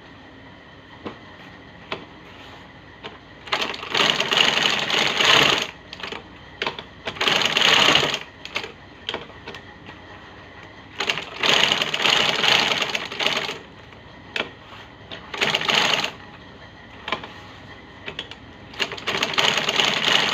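Sewing machine stitching shoe uppers in five short runs of rapid stitching, with a few single clicks in the pauses between runs.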